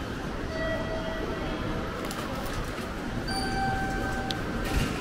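Bustle of a railway station concourse at the automatic ticket gates, with overlapping short electronic tones from the gates. A sharp click and then a thump come near the end as a ticket goes through a gate.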